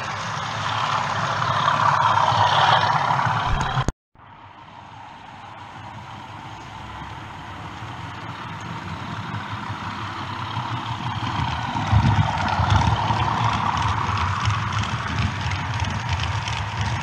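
OO gauge model trains running on the track: a steady rumble of wheels over the rails with fine rhythmic clicking, swelling as a rake of model hopper wagons passes close by. It cuts out abruptly about four seconds in, then builds up again as another train passes.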